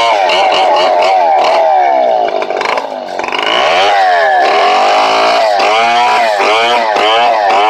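Stihl 070 two-stroke chainsaw running hard while ripping a mahogany log, its engine pitch repeatedly sagging under load and recovering. Near the middle it drops lower and quieter for about a second before climbing back.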